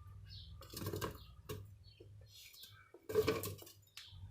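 A few short knocks and clatters of kitchen items being handled, in two clusters about a second in and about three seconds in, over a low steady hum.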